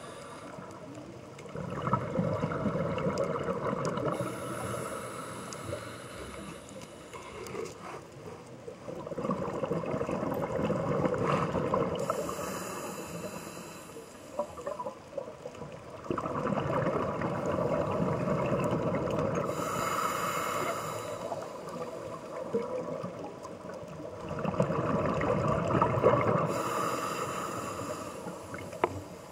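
Scuba regulator breathing underwater: four long, bubbling exhalations about seven or eight seconds apart, with quieter stretches between them.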